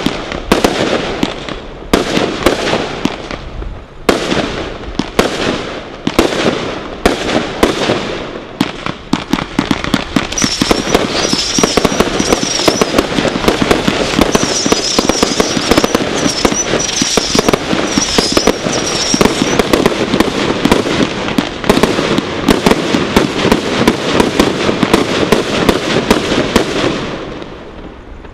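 Brothers Pyrotechnics Godfather Display Kit, three linked consumer firework cakes, firing shot after shot. For about the first ten seconds there are sharp bangs roughly every half second. After that the shots run together into dense crackling with a high wavering whistle over it for about ten seconds, then die away near the end.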